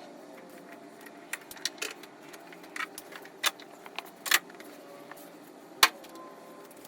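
Irregular sharp metallic clicks and clinks, about eight spread over several seconds with the loudest near the end, from hands and tools working among the engine wiring harness and its sensor connectors.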